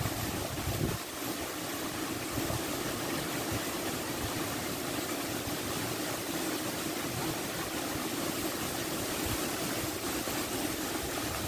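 Shallow creek water running and stirring around a wader's legs as he sweeps an electrofishing probe through it, with a steady low hum throughout.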